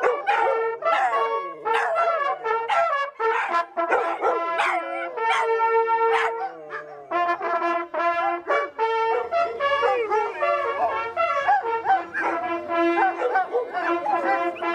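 Several hunting horns playing a brass fanfare together in harmony, some notes held steady while others move quickly.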